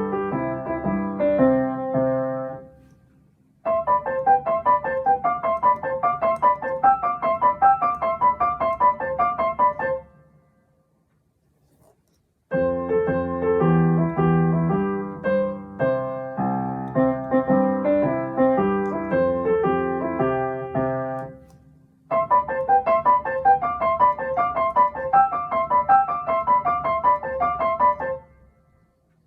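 Piano played in short phrases that each stop abruptly, with brief silences between them. Two phrases are made of quick, repeated descending runs of high notes, and a lower, heavier chordal phrase comes in the middle.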